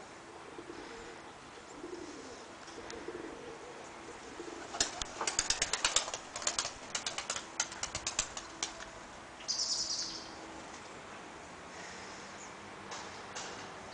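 Takla (Turkish tumbler) pigeons' wings clapping in a rapid run of sharp claps for about four seconds, with soft pigeon cooing before it.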